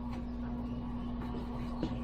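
Steady background hum holding one constant low tone, with a brief faint sound near the end.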